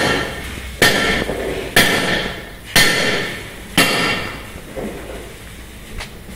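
A hammer striking metal five times, about a second apart, each blow ringing on briefly; two much fainter knocks follow near the end.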